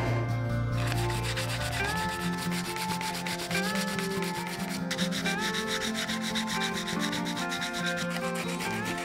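Sandpaper rubbed by hand over a small wooden part in quick back-and-forth strokes, starting about a second in with a short pause about five seconds in. Background music plays underneath.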